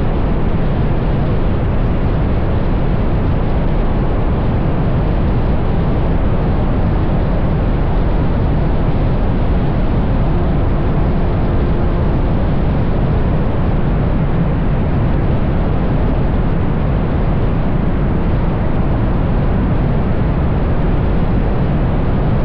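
Steady wind rush and tyre roar on a car cruising at highway speed, picked up by a camera mounted outside the car, with no changes in pitch or level.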